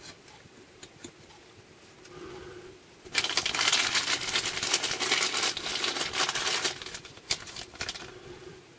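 A few small clicks as a tube is seated in a homemade tube-type 40-meter shortwave receiver. Then, about three seconds in, crackling static from the receiver comes up suddenly and runs for several seconds before fading to scattered clicks near the end.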